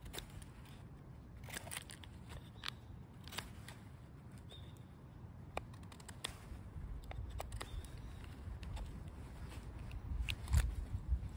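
Knife blade carving a small stick of wood: a string of short, irregular scraping and clicking cuts as shavings come off. A louder low bump comes near the end.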